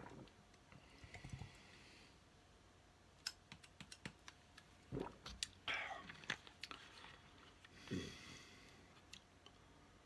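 Quiet chewing and swallowing of coconut gel pieces from the last of a mango juice drink, with scattered small clicks of a plastic bottle and its cap being handled.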